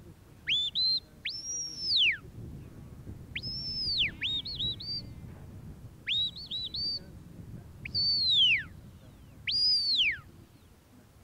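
A sheepdog handler's whistle commands to a working dog on sheep. Loud, high whistles come in a run: long notes that hold and then fall away in pitch, with quick flurries of short rising chirps between them.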